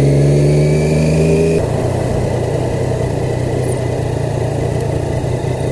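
Triumph Daytona sport motorcycle engine running at steady revs while riding, its pitch creeping up slightly. About a second and a half in, the revs drop to a lower, rougher note that runs on under road and wind noise.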